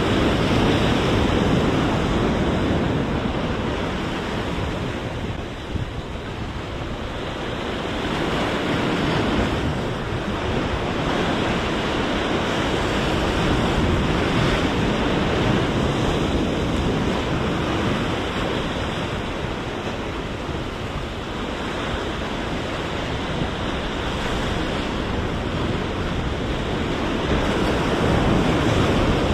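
Ocean surf breaking and washing over jetty rocks: a steady rush of whitewater that swells and ebbs, loudest at the start, dipping a few seconds in and rising again near the end.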